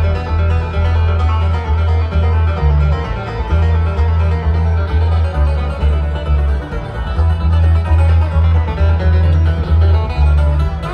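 Live bluegrass band playing through a PA, heard from the crowd: quick picked string-instrument lines over a loud, pulsing bass.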